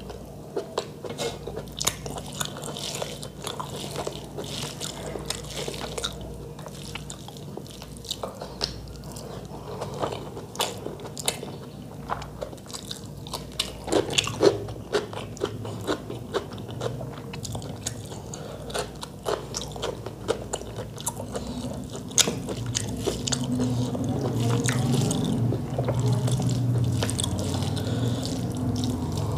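Close-miked chewing of rice and chicken curry eaten by hand, with many irregular wet mouth clicks and bites, and fingers mixing rice and curry on the plate. The sound grows louder over the last several seconds.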